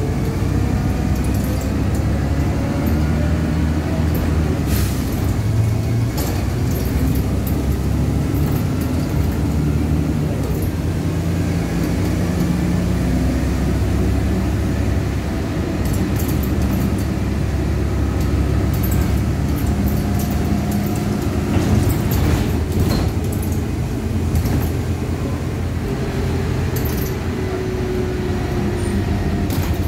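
LiAZ-5293.60 city bus under way, heard from inside the passenger cabin: the engine and drivetrain run with a steady hum and a whine that slowly rises and falls in pitch. Short rattles and clicks come now and then.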